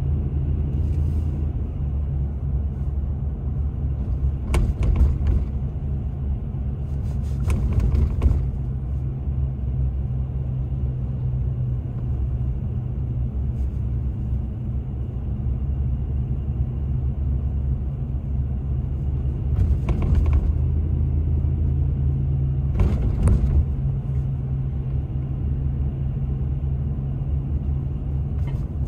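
Steady low rumble of a car driving, with engine and road drone heard from inside the cabin. Four brief rushing swells break through along the way.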